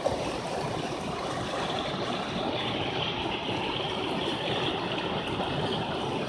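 A stream running steadily: an even rush of flowing water.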